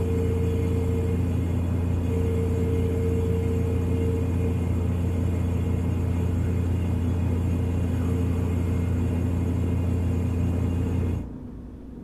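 Refrigerator running with a steady low hum, which cuts off shortly before the end.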